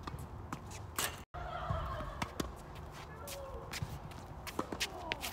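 Tennis balls being struck and bouncing on an outdoor hard court, a scatter of sharp knocks, with footsteps and a few faint squeaks. The sound cuts out completely for a moment about a second in.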